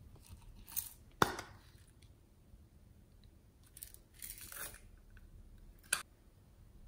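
Small plastic objects handled by hand: a sharp plastic click about a second in, a soft rustle around four seconds, and another sharp click near the end.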